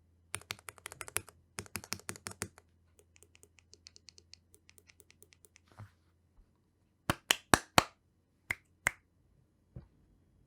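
Typing on a Feker IK75 mechanical keyboard with Gateron Milky Yellow Pro linear switches. Fast bursts of keystrokes come first, then lighter, evenly paced presses at about five a second, then a few louder single key strikes near the end.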